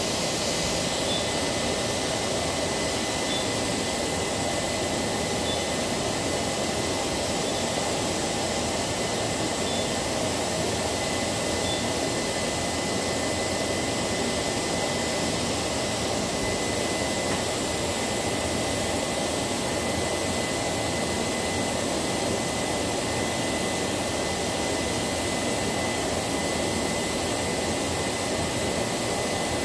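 Steady mechanical whir of factory machinery and ventilation, with a thin high-pitched whine.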